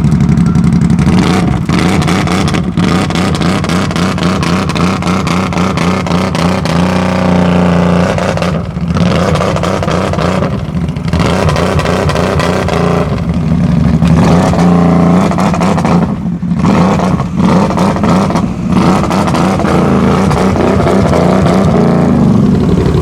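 Vehicle engine running hard and revving, its pitch rising and falling, with several brief drops in the sound.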